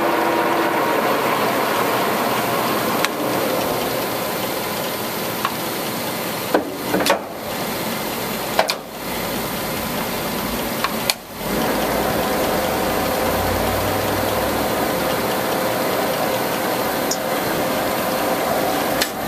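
Warner & Swasey No. 4A turret lathe's geared headstock running with the spindle and chuck turning at speed. Several sharp clunks come between about six and eleven seconds in as the speed levers are shifted, and the headstock then runs on at a new spindle speed with a steady whine.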